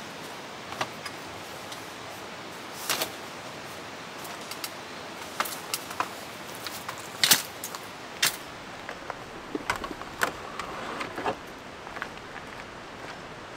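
Irregular light clicks and knocks, a dozen or so, the loudest about seven seconds in, over a steady background hiss.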